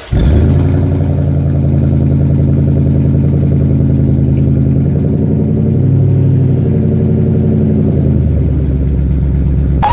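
An engine starts up abruptly and runs steadily at a low, even pitch. It rises slightly about six seconds in, then settles lower near the end.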